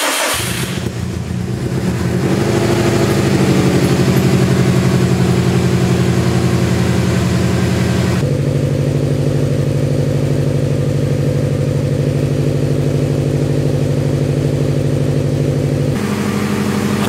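2004 Subaru STi's turbocharged flat-four with a 3-inch turbo-back exhaust, idling at its raised cold idle just after starting from months of storage. The pitch lifts a little about two seconds in and then holds steady, and the tone changes abruptly about eight and again about sixteen seconds in.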